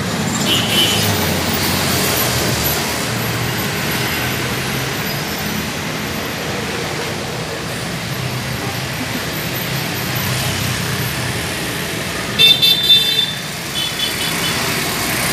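Steady rumble of passing road traffic. Near the end come a few short, shrill toots, with a fainter one a second later.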